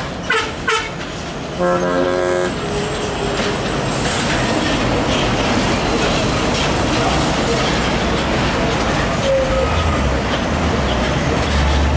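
Diesel engines of heavy container trucks running as they pull through a junction, with a short horn blast about two seconds in. A deep engine rumble grows near the end as a truck passes close.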